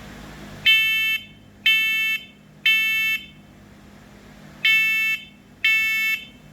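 Talking smoke and carbon monoxide alarm's horn beeping in test mode: three shrill beeps about a second apart, a pause, then two more, the temporal-three pattern that signals smoke.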